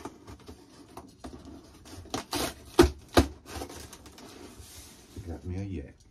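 Cardboard shipping box being handled: flaps rustling and scraping against the box inside, with two sharp knocks close together about three seconds in.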